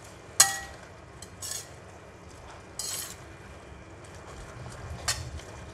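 Slotted metal spatula clanking and scraping against a stainless steel wok while stir-frying greens. There are four separate clanks; the first, about half a second in, is the loudest and has a short metallic ring.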